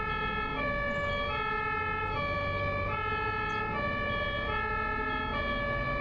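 German emergency vehicle's two-tone siren, alternating between a higher and a lower tone about every three quarters of a second, over a low rumble of traffic.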